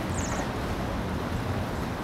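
Wind rumbling on the microphone, with a brief faint high-pitched trill of a few quick notes about a quarter second in.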